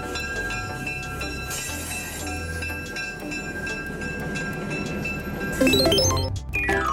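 Diesel-electric train running: a steady low rumble with steady high tones held over it. A little before the end, a quick rising then falling musical run cuts in more loudly.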